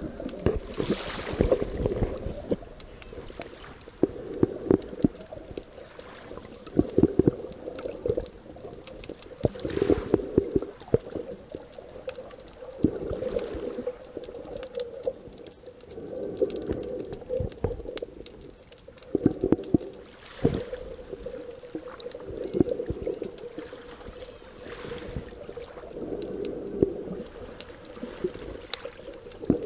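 Muffled underwater sound heard through a camera's waterproof housing: water surging in repeated bursts every two to three seconds as the diver swims, with small clicks and crackles between them.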